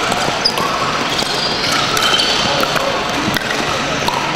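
Indoor sports-hall din: sharp pops of pickleball paddles hitting plastic balls on nearby courts, with brief shoe squeaks on the hardwood floor and a background murmur of voices, all echoing in the large hall.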